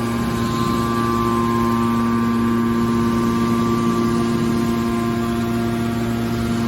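Hydraulic scrap metal baler running with a steady hum, several constant tones over a noisy mechanical bed.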